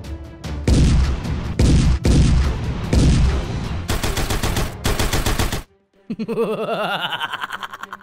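Electronic toy gunfire sound effects: loud single shots about once a second, then a fast machine-gun rattle. After a short break comes a warbling electronic tone rising in pitch.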